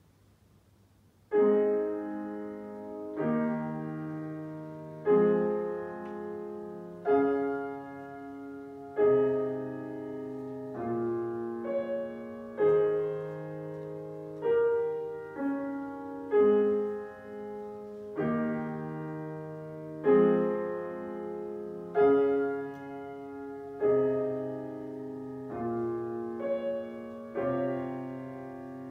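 Grand piano: after a short silence a slow piece begins about a second in, full chords struck roughly every two seconds, each ringing and fading before the next.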